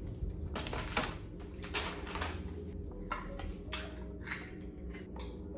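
Cooking clatter from a frying pan and kitchen utensils being handled at a hot plate: a series of separate clinks and knocks, roughly one every half second to second, over a low steady hum.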